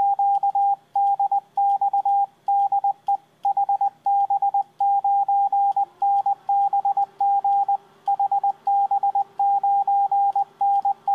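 Morse code (CW) keyed with an iambic paddle and heard as the sidetone of an Elecraft K3S transceiver. A single steady tone switches on and off in a quick run of dots and dashes.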